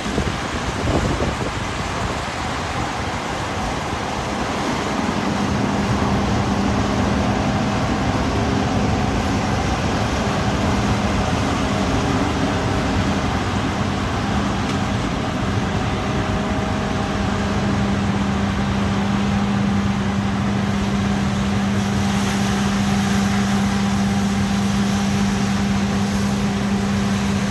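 Claas combine harvester running steadily in the field, a continuous machine drone with a constant low hum.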